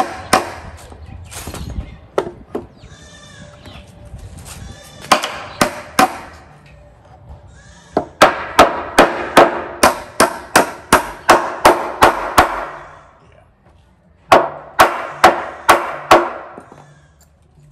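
A hammer driving nails into wooden boards: bursts of sharp strikes, about three a second, with short pauses between the bursts.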